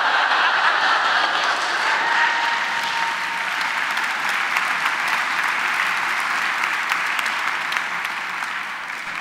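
Large audience giving a standing ovation: dense, steady applause that eases off slightly near the end.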